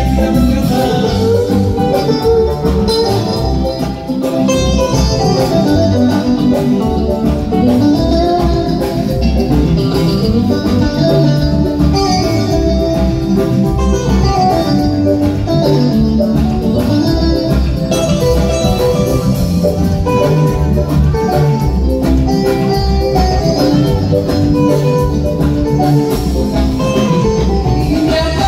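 Live band playing an instrumental passage without vocals: a plucked guitar leads over a steady bass beat.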